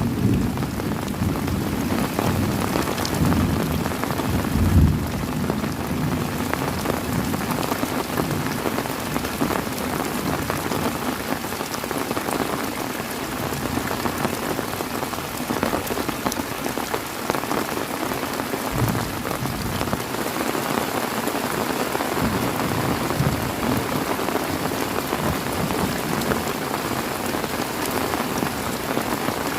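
Heavy rain falling steadily, with a low rumble of thunder in the first few seconds that fades away.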